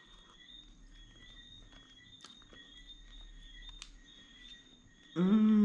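A few faint clicks of a fork on a plate over a faint, steady, high insect chirring. Near the end comes a long, loud hummed "mmm" of enjoyment from someone tasting food.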